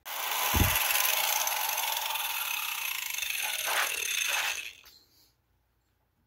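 Angle grinder with a cut-off wheel cutting through a steel leaf-spring hanger on a truck frame: a steady, hissing high whine that starts suddenly and stops about five seconds in, with one low thump just after it starts.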